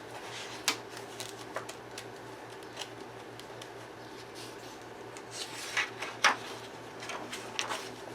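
Paper pages of a perforated coloring book being turned, with a handful of sharp crackles and rustles, the loudest about a second in and two close together past the middle. The crackling comes from freshly cut perforations sticking and pulling apart as the book is opened fully for the first time.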